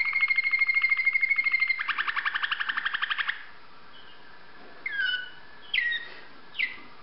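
Waterslager canary singing: a fast pulsed trill over a held whistle-like tone, the trill going on alone and louder until it stops about three seconds in, followed by three short separate notes that fall in pitch.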